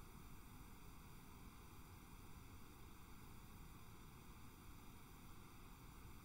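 Near silence: a steady, faint hiss of recording noise.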